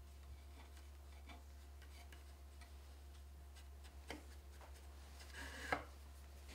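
Faint light ticks and rubbing of fingers working weft yarn through the taut warp threads of a wooden frame loom, with one sharper tick near the end.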